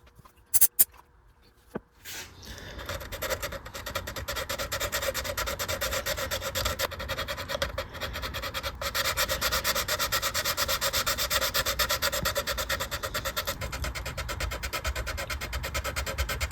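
220-grit sandpaper rubbing in rapid back-and-forth strokes over hardened clear CA filler on a guitar body's finish, levelling the fill flush with the surrounding paint. A few sharp clicks come first, then the sanding starts about two seconds in and keeps an even, fast rhythm.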